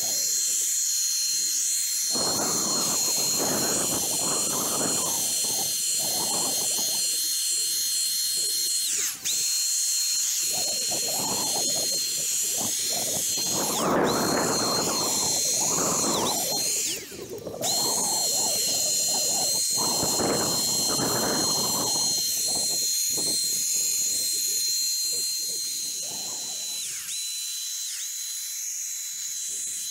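Handheld electric paint sprayer running, a steady high whine under the hiss of air and atomised paint. The whine sags or cuts out briefly a few times.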